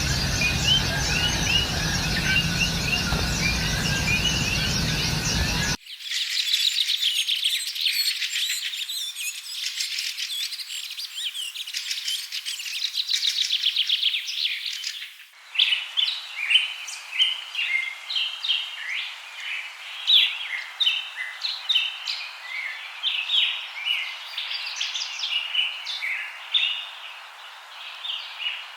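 Many birds chirping and calling at once, a dense run of short overlapping calls. The sound changes abruptly about six seconds in and again about fifteen seconds in, as if spliced from different recordings, and the first part has a low background noise under the calls.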